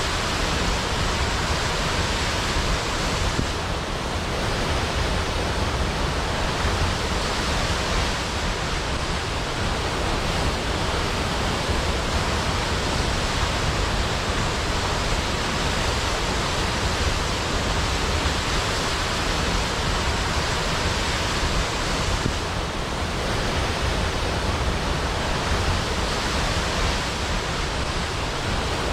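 Large waterfall pouring steadily, a dense, unbroken rush of falling water.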